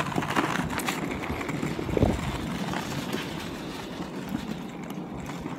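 Skateboard wheels rolling over pavement, a steady rolling rumble with one heavier knock about two seconds in.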